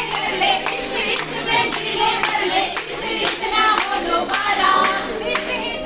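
A group of women singing together in unison, with hand claps.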